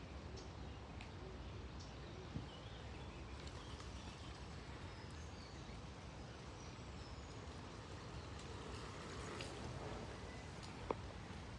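Steady, gentle flow of a small stream, faint, with birds chirping in the distance over it and two sharp clicks.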